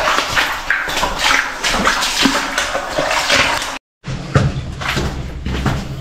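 Footsteps and scuffing moving along an underground tunnel floor, close to a handheld phone's microphone, as a series of short sharp noises. The sound drops out completely for a moment just before the four-second mark, and after that a low steady hum runs under the steps.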